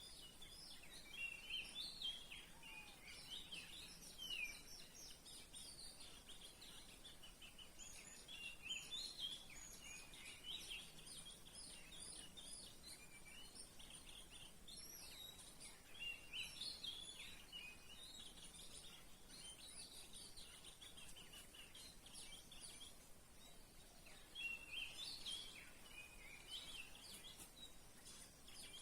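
Songbird singing in bursts of quick chirping and whistled phrases, several times over, with a steady high-pitched drone underneath, like insects.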